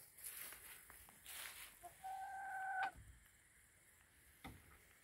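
A hen gives one drawn-out, steady call a little under a second long, about two seconds in. A single faint click or knock follows near the end.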